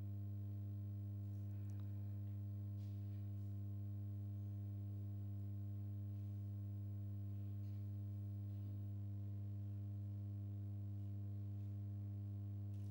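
Steady electrical mains hum: one low, unchanging tone with a row of evenly spaced higher overtones. Faint small noises from the room now and then.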